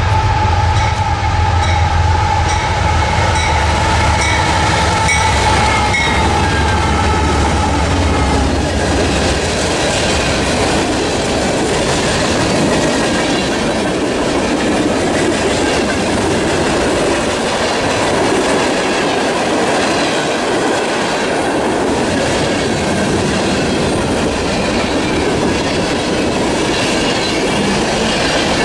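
A mixed freight train passing close by: its diesel locomotives drone with a steady whine for the first several seconds, then the string of freight cars rolls past with a steady noise of wheels on the rails.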